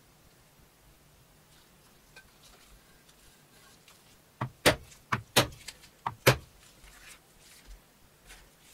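Stitching chisel (pricking iron) being struck with a mallet through leather onto a plastic board: a short run of sharp knocks, three loud strikes, each just after a lighter tap.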